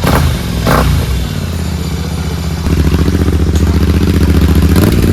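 Royal Enfield Continental GT 650's parallel-twin engine running through a Red Rooster aftermarket exhaust with the dB killer fitted. Two short sharp bursts come near the start, then the engine runs steadily louder from about two and a half seconds in.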